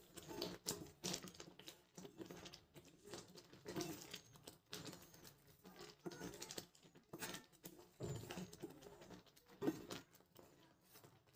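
Wooden spatula stirring thick, wet semolina upma in a nonstick kadhai: faint, irregular scrapes and soft clicks against the pan.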